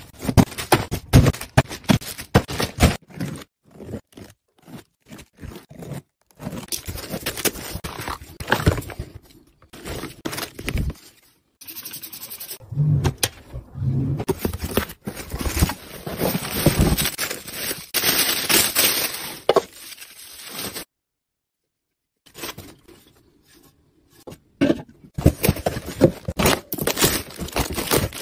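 A run of short handling sounds cut together: cardboard boxes knocking and sliding, plastic packaging crinkling and rubbing, and scraping, with many sharp knocks throughout. A moment of silence falls about three quarters of the way through.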